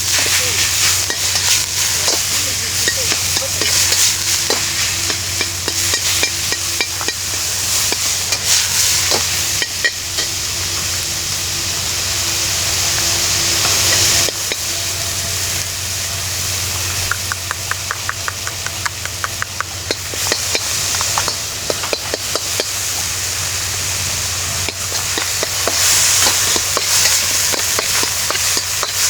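Food sizzling in a hot pan or on a grill, with frequent clicks and scrapes of a utensil stirring or turning it.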